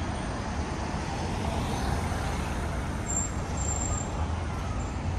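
Steady noise of city road traffic, with cars driving past.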